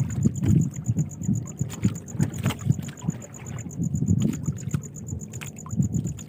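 Water slapping and sloshing against the hull of a small fishing boat in irregular low knocks, with a thin, rapidly pulsing high note behind it.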